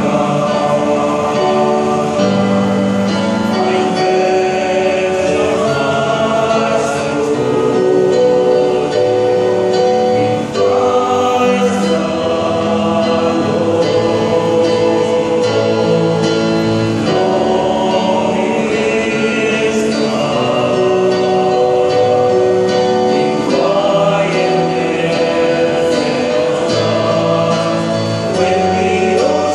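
Male choir singing in harmony from sheet music, with held chords that change every second or two.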